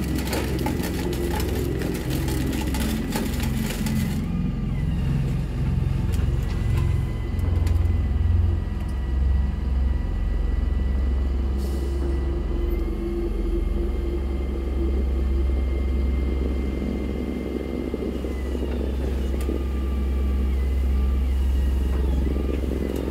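Heavy vehicle engine running with a steady low rumble and a faint steady whine over it.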